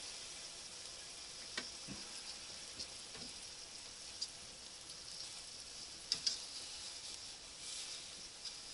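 Sausages sizzling on a portable butane gas grill, a steady fine hiss, with a few light clicks of metal tongs against the grate as they are turned, including a quick pair about six seconds in.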